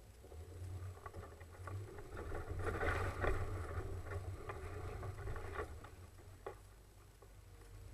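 Off-road vehicle driving over rough trail: a steady low drivetrain rumble with knocks and rattles that grow loudest about three seconds in and die away near the end.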